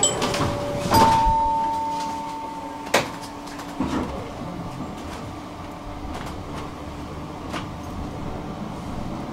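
Tram doors closing: a steady warning tone for about two seconds, then a sharp clack as the sliding doors shut, a further knock, and the tram's low steady hum.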